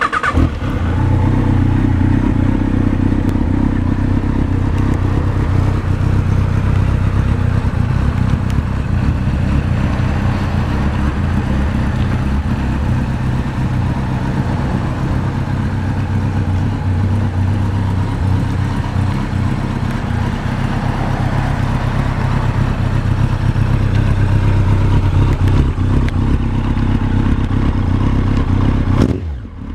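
Yamaha XJR1300's air-cooled inline-four, breathing through an Akrapovič muffler, starts and settles at once into a steady idle. The sound drops away just before the end.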